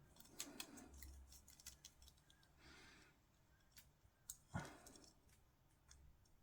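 Faint, scattered small clicks and taps of plastic miniature parts being handled and pressed together, with one duller knock about four and a half seconds in.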